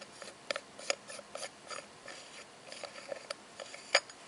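Fingernails scraping and clicking at the rim of a silveroid pocket watch's snap-on back cover, trying to pry it open: a run of small clicks and scratches, with one louder click near the end.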